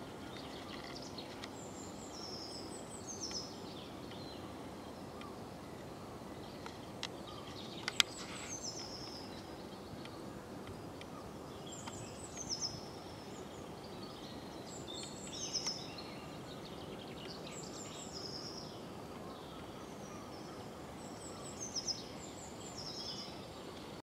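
A small songbird singing short, high, falling phrases every few seconds over a steady low background rumble. One sharp click about eight seconds in.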